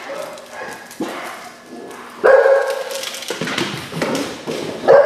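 Rottweiler barking: a loud bark a little past two seconds in and another near the end, with quieter sounds in between.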